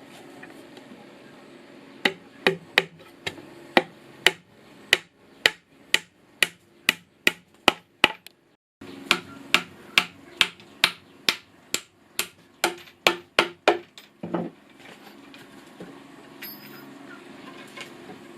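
Hammer driving nails into wooden boards, a run of sharp strikes at about two a second with a brief break partway through. The strikes end with one duller thump, then only a low steady background remains.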